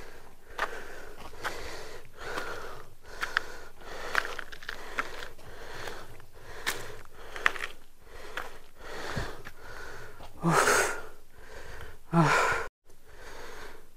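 A man breathing hard and wheezing from the exertion of a steep climb, with a heavy breath about once a second and two louder, longer gasps near the end.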